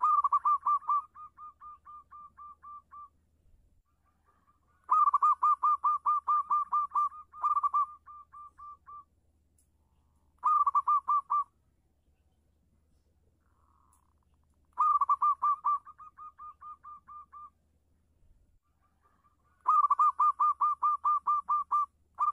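Zebra dove (local perkutut) singing: runs of rapid, staccato cooing notes, each run starting loud and trailing off softer. About six runs follow one another a few seconds apart.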